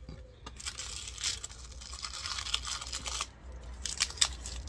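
Tape peeling and paper and carbon paper rustling as the taped sheets are lifted off a wooden plank, with a few sharp crackles near the end.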